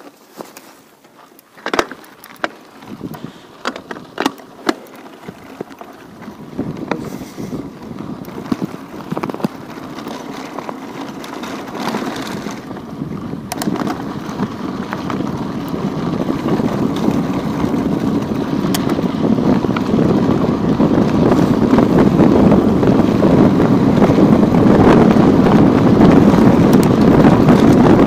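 Wind rushing over the microphone of a chest-mounted Xiaomi YI 4K action camera, building steadily over about twenty seconds until it is loud. A few sharp clicks and knocks come in the first several seconds.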